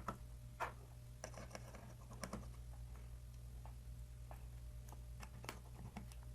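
Faint, irregular small clicks and ticks of a precision Phillips screwdriver and metal tools working tiny screws out of an opened iPhone, over a steady low hum.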